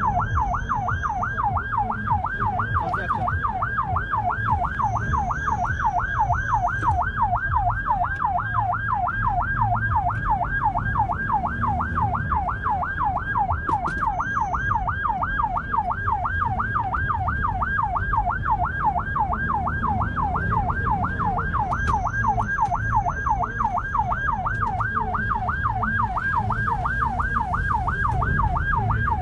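Emergency-vehicle siren in a fast yelp, about three rising-and-falling sweeps a second, over engine and road rumble from inside a moving vehicle.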